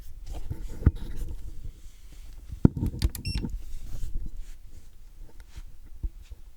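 Handling clatter of clicks and knocks, with a short high electronic beep about three seconds in.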